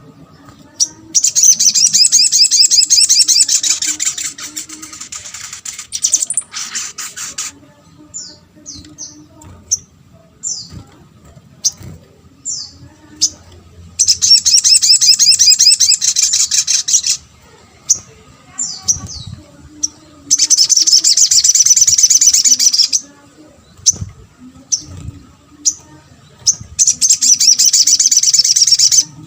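Little spiderhunter (sogok ontong) singing: four loud, rapid, high-pitched trills of about three seconds each, with short sharp single chirps in between.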